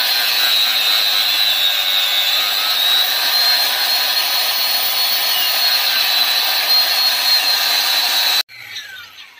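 Handheld angle grinder with an abrasive disc grinding a steel rubber-tapping knife blank: a steady high whine over harsh grinding noise. It cuts off suddenly about eight seconds in.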